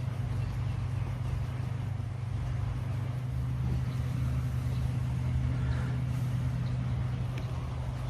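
A machine engine running steadily, a low even hum with no change in speed.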